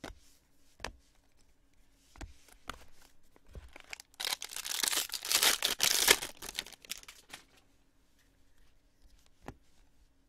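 Foil wrapper of a Bowman baseball card pack being torn open and crinkled, a crackling rustle of about three seconds that starts about four seconds in. A few soft clicks of cards being handled come before and after it.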